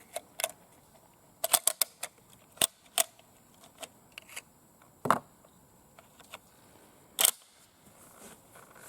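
Sharp metallic clicks and clacks of a Swiss K31 straight-pull rifle being handled and loaded: a quick run of four clicks about a second and a half in, scattered single clicks, and two heavier clacks around five and seven seconds in.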